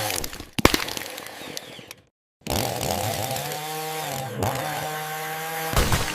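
AI-generated chainsaw sound. A cutting noise fades out, then after a brief moment of dead silence a chainsaw engine runs at a steady pitch, growing louder near the end.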